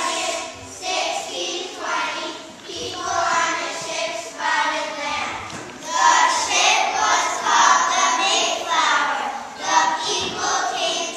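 A group of young children singing together in unison, in phrases with short breaths between them.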